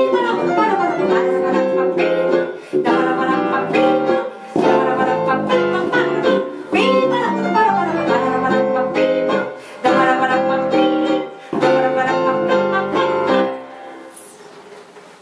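Live band music: stage piano and electric bass playing a song with a singer. The tune ends about thirteen seconds in, and a final chord dies away.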